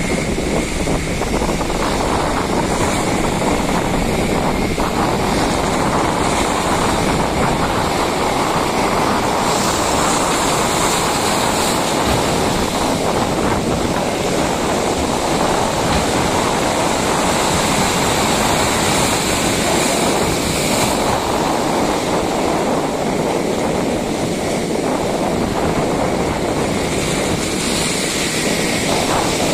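Heavy sea surf surging and breaking, with strong wind rushing over the microphone: a steady, dense roar.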